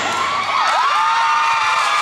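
Crowd cheering, with several high-pitched voices holding long screams over one another.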